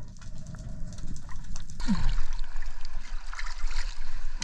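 Water trickling and sloshing with a few small knocks, louder and brighter from about two seconds in.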